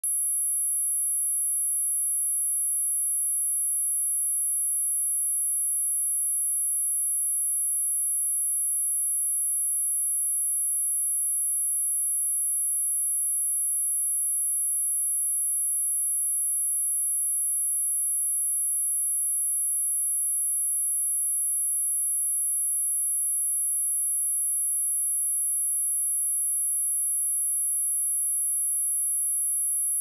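A single pure sine-wave test tone at 10,874 Hz: one very high, steady tone held at an unchanging level. It is a synthesized speaker-test tone, also played to shake water and dust out of a speaker.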